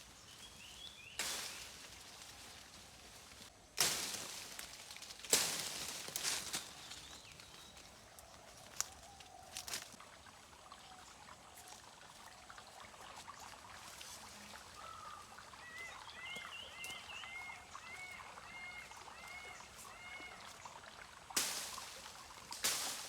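Water poured out in several short splashes, with quieter stretches between them. About midway, a bird sings a run of quick repeated chirps that rise and fall.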